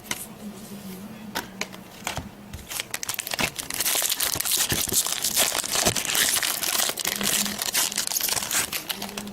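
Foil trading-card pack wrapper crinkling and being torn open: a few light clicks at first, then about six seconds of dense crinkling.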